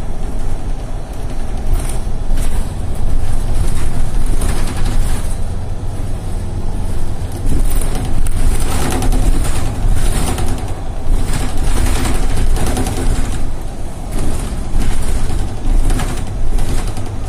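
Mercedes-Benz Citaro city bus driving, heard from inside the cabin: a steady low engine rumble with tyre and road noise, swelling and easing every few seconds as the bus pulls away and slows.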